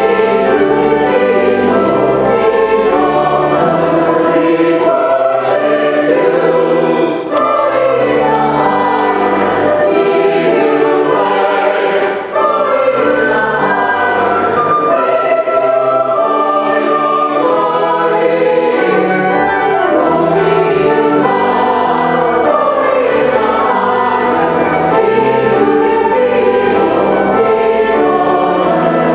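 Choir and congregation singing a hymn together, with sustained low accompaniment under the voices, continuous and steady.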